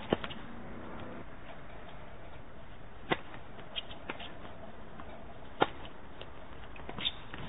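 Tennis ball being hit back and forth in a singles rally: sharp pops of racket strikes and ball bounces a couple of seconds apart. The loudest come right at the start and about three and five and a half seconds in.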